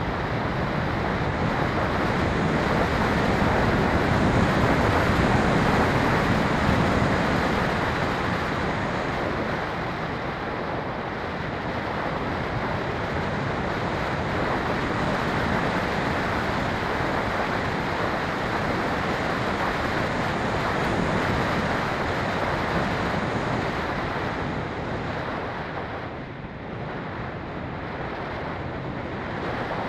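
Rushing airflow over the onboard camera of a Phoenix 2400 RC glider in flight. The steady wind noise swells a few seconds in and dips briefly near the end.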